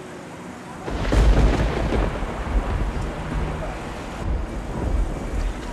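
A deep rumble with a hiss over it, which starts suddenly about a second in and slowly dies away.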